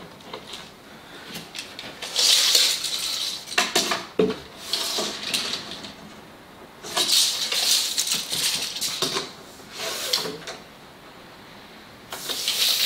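Steel tape measure blade being pulled out and run back in, in several separate bursts of metallic rattling and scraping with a few sharp clicks.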